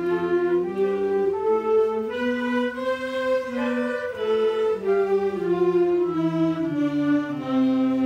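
A school wind band, flutes among them, playing the concert C major scale one octave in quarter notes: about two notes a second, climbing step by step to the top C about three seconds in, then stepping back down.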